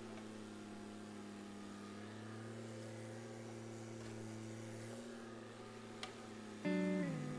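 Compact excavator's diesel engine running at a steady pitch, heard at a distance. Near the end, a louder sound with several tones starts and slides down in pitch.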